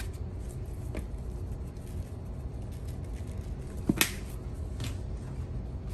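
A plastic seasoning shaker being handled over a mixing bowl: a few small clicks, the sharpest about four seconds in, over a low steady room hum.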